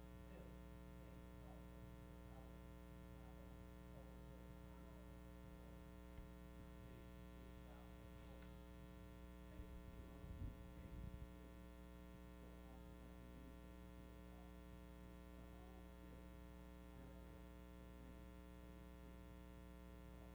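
Near silence with a steady electrical hum, and a few soft low knocks about ten seconds in.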